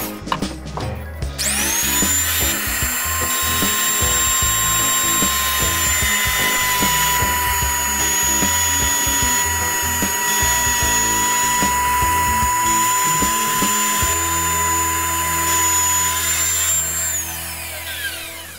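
Small power tool's electric motor starting with a rising whine about a second in, running steadily at a high whine, then winding down in pitch near the end. Background music plays underneath.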